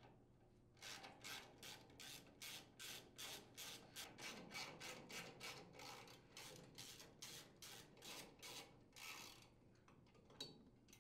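Socket ratchet wrench backing out the rocker cover screws on a small engine: a steady run of faint rasping ratchet clicks, about three a second, starting about a second in and stopping near the end.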